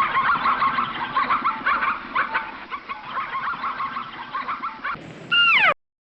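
A flock of birds calling, many short overlapping honking calls in a dense chatter. Near the end a single different call drops steeply in pitch.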